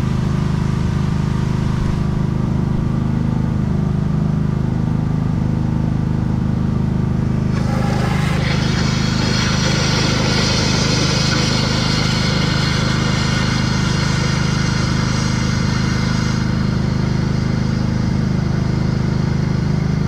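Compressed air blasting flush solvent back through a bulldozer's air-conditioning lines: a loud hiss of air and spray starts about seven seconds in and stops about sixteen seconds in. Under it, the steady low hum of a running machine.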